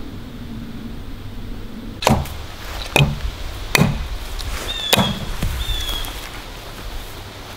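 Hatchet chopping into wood: four sharp strokes about a second apart, each with a short ring.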